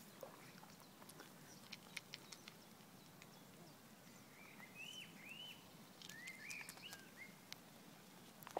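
Quiet, scattered clicks of a coypu (nutria) chewing a piece of food held in its front paws, close up. A bird chirps a few short times in the background from about four to seven seconds in.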